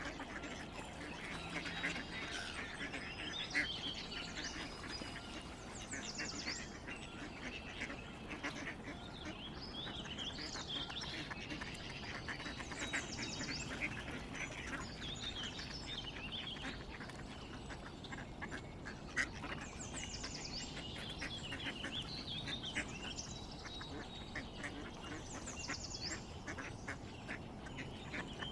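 Ducks quacking repeatedly, many short calls in a row, with a steady background hiss.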